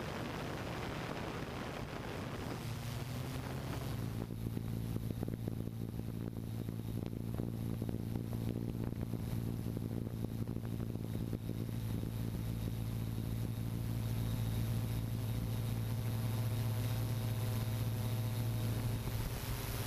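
A hexacopter drone's motors and propellers running with a steady hum and a faint high whine. About four seconds in, the hum comes to the fore over wind rushing on the microphone.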